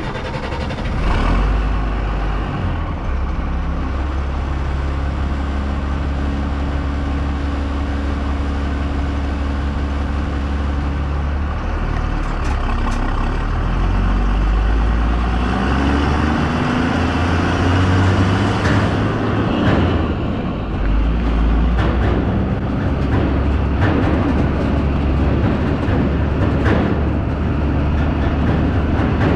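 A truck driving on the road, its engine running steadily under road noise. The engine pitch climbs as it accelerates from about the middle, dips briefly near twenty seconds, then picks up again, with a few short knocks and rattles along the way.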